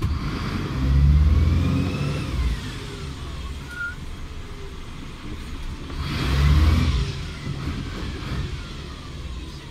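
DAF CF 75 250 garbage truck's diesel engine and exhaust, loud, heard from inside the cab. The revs swell twice, each time with a whistle that rises and then falls away.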